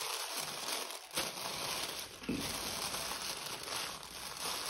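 Thin tissue paper rustling and crinkling as it is folded over the contents of a gift box, picking up about a second in and again a little after two seconds.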